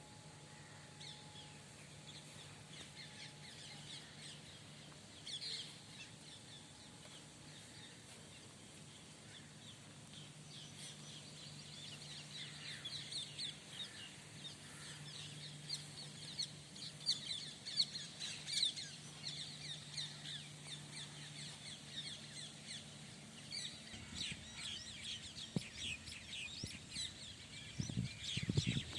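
Many small birds chirping in quick, high-pitched notes, getting busier about a third of the way in. A faint steady low hum sits underneath until near the end.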